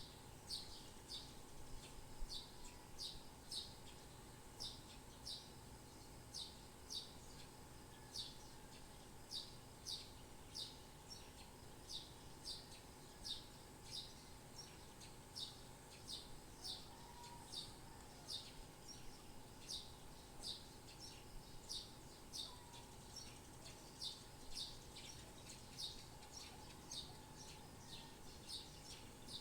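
A bird repeating short, high chirps, often in quick pairs, about once or twice a second, over a faint steady hum.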